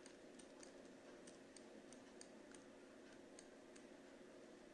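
Near silence: a faint steady room hum with light, irregular clicks several times a second, the taps of a pen or stylus writing out the working.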